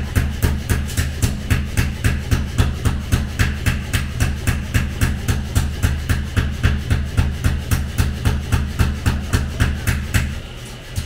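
Background music with a fast, steady beat and a pulsing bass line that drops out briefly near the end.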